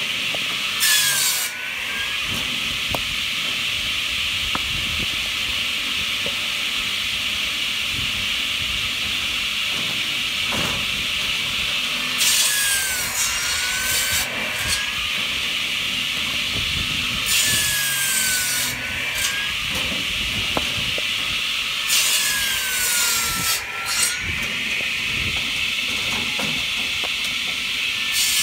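Hartnett 500 mm electric log saw bench running, its circular blade spinning with a steady whine between cuts. Four times it saws through a log fed in on the cradle. Each cut is a loud rasping burst as the blade's pitch dips under load and then recovers.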